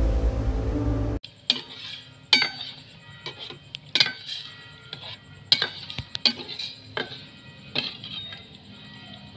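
Scary background music cuts off about a second in. Then a metal utensil clinks against a cooking pot in a series of irregular light clinks, each with a short ring.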